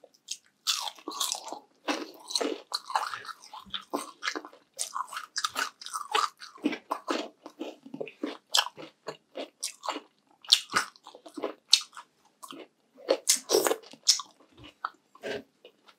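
A person biting and chewing crunchy food close to the microphone: a steady run of irregular crunches and chews.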